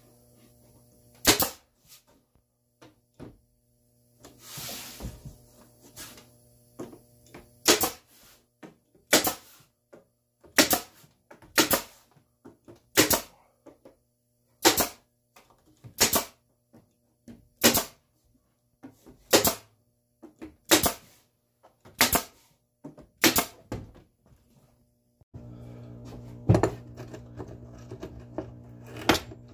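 Bostitch pneumatic brad nailer firing brads into plywood: about a dozen sharp shots, one every second and a half or so. Near the end a steady low hum comes in, with a couple of knocks.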